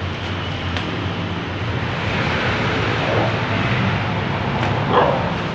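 Steady low mechanical hum of a running vehicle engine or nearby traffic, with a dog barking twice, about three seconds in and near the end.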